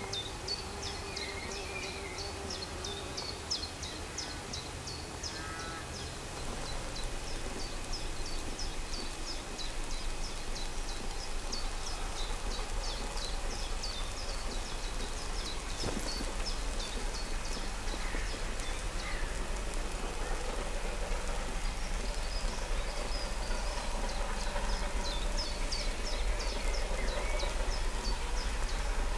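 Small birds singing in runs of quick, high chirps. Under them is the low rumble of a distant steam locomotive, the Bulleid Battle of Britain class Pacific 34067 Tangmere, growing louder through the second half as it approaches.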